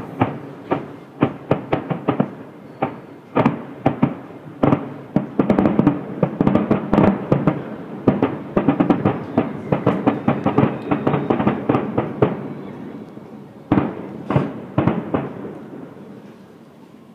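Aerial fireworks shells bursting in a fast, irregular series of bangs, densest through the middle. The bangs thin out to a few last reports near the end, then fade.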